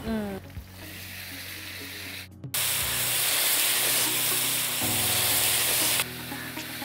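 Pieces of meat sizzling in hot oil in a kadai (two-handled wok) as they are stirred with a wooden spatula. The sizzle starts suddenly about two and a half seconds in, is the loudest sound, and cuts off at about six seconds. Soft background music runs underneath.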